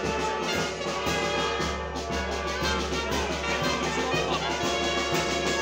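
Procession band music led by brass instruments, playing continuously.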